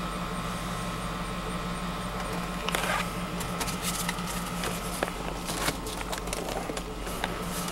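2005 Cadillac Escalade's V8 idling with the constant whine of its air conditioner, heard from inside the cabin. From about three seconds in, scattered clicks and rustling of handling break in over the steady hum.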